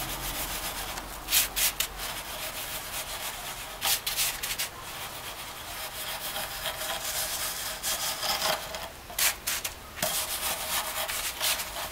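A wooden stick scraped over wet pumice concrete, dragged round to shape the dome: a continuous gritty scraping, with a few louder strokes about a second and a half in, around four seconds and near nine to ten seconds.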